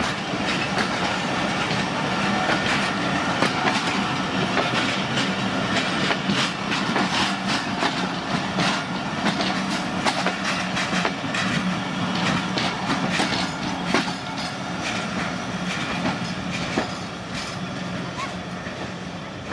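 Passenger coaches of a departing train rolling past close by, their wheels clattering over the rail joints in a steady clickety-clack. The sound eases near the end as the last coach goes by.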